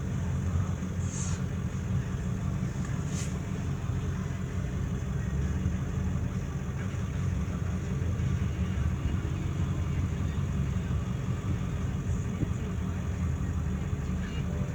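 A steady low rumble with no siren sounding.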